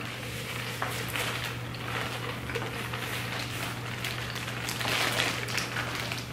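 A clear plastic bag crinkling and rustling irregularly as hands dig through the seafood inside it, over a steady low hum.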